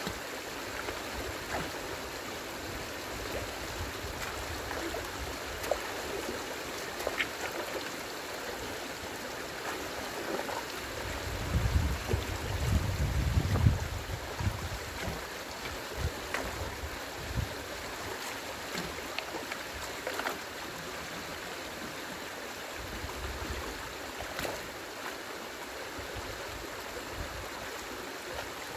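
Stream water, high after rain, running and splashing steadily. A low rumble rises for a couple of seconds near the middle, and a few small knocks are scattered through.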